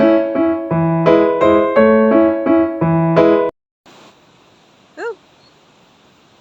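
Piano-like keyboard music playing repeated chords cuts off abruptly about three and a half seconds in. A faint steady hiss follows, with a single short call that curves in pitch about five seconds in.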